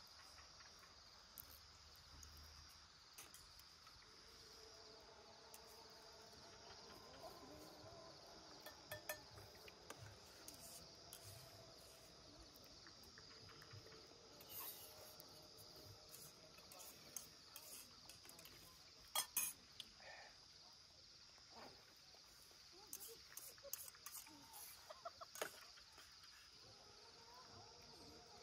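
Faint, steady calling of night insects, like crickets, with scattered light clinks of spoons against a metal pan and bowls as people eat. The loudest clink comes about two-thirds of the way through.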